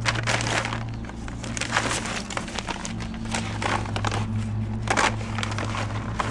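Paper envelopes and padded mailers rustling and crinkling as a hand rummages through them in a cardboard box, in uneven scrapes and crackles, over a steady low hum.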